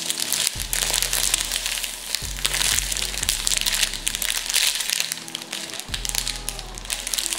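Clear plastic packaging crinkling and crackling as a foam squishy toy sealed inside it is squeezed and turned in the hands, over background music.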